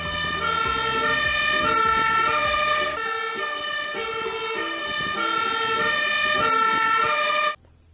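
Toy fire truck's electronic sound chip playing a siren tune: clean electronic tones stepping between pitches every half second or so. It cuts off suddenly about seven and a half seconds in.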